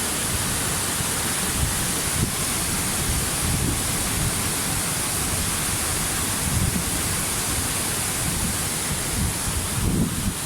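Waterfall: a steady, loud rush of falling water with a fluttering low rumble underneath.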